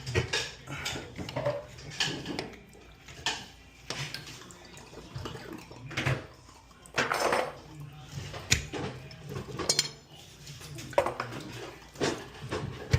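Irregular hard clinks and knocks, about a dozen spread unevenly, as of tools and fittings being handled on toilet plumbing. A faint steady low hum lies beneath them.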